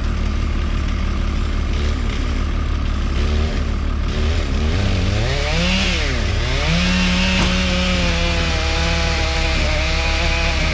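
Two-stroke chainsaw revving up and down several times about halfway in, then held at high speed, over a steady low hum from a larger engine.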